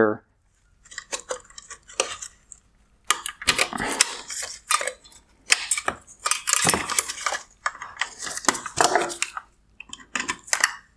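Hard plastic clicks, clatter and scraping as two wire connector clips are unclipped from the back of a bi-xenon headlight projector module and the module and its wiring are handled. The sounds are irregular and start about a second in.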